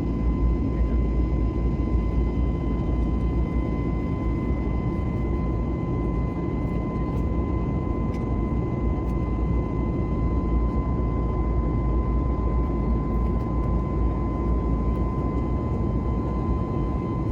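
Steady cabin noise of a passenger jet in flight: a deep, even rumble of engines and rushing air, with a thin steady whine riding over it.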